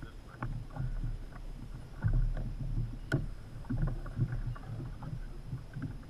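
Water lapping and sloshing against a sailing kayak's hull under a steady low wind rumble on the microphone, with scattered small knocks and one sharp click about three seconds in.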